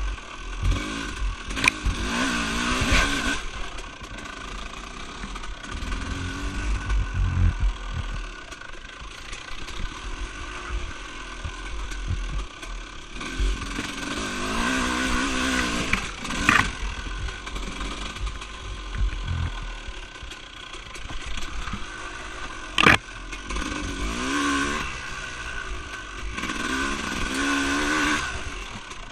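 An off-road vehicle's engine riding a dirt track, revving up and easing off again and again, over a low rumble. Three sharp knocks cut through, the loudest about three-quarters of the way in.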